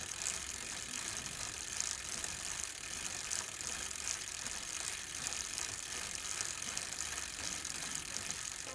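Bicycle freewheel ratcheting: a dense, steady run of fine clicks.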